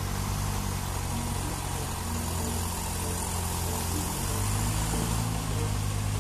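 Box truck's engine running at low revs while the truck creeps through a tight turn, a steady low hum that grows a little louder about four seconds in.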